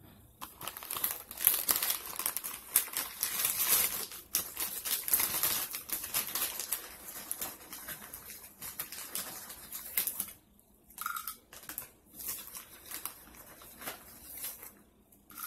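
Dense crackling and crinkling close to the microphone, full of small sharp clicks, from crunchy snack food or its wrapping being handled and eaten. It is loudest over the first ten seconds, then turns into sparser, quieter crackles.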